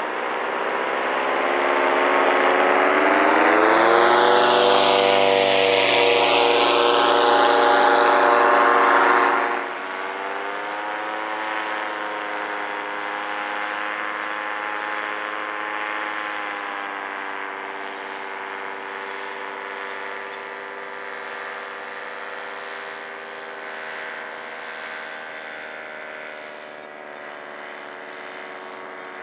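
Powered paraglider trike's engine and propeller droning as it flies past close by, loudest in the first ten seconds. Then it drops away suddenly and carries on as a fainter steady drone, fading into the distance.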